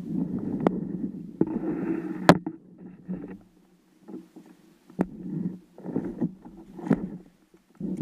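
Irregular water sloshing against a kayak's hull, with four sharp knocks. It falls nearly quiet for about a second near the middle.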